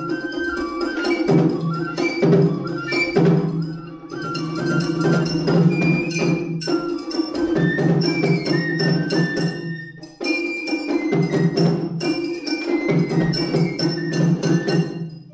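Japanese festival music (matsuri-bayashi) played live: a shinobue bamboo flute's stepping high melody over rapid strokes on shime-daiko stick drums and a large barrel drum. The playing briefly thins out about four and ten seconds in, then goes on.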